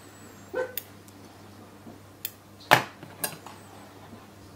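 A few light clicks and taps of metal tweezers and fingers against the Elna L4 overlocker's metal looper parts and thread guides while threading a looper. About five short clicks, the loudest near the middle.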